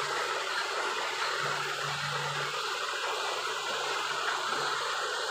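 Heavy machinery running steadily: an even rushing noise with a faint low hum that comes and goes.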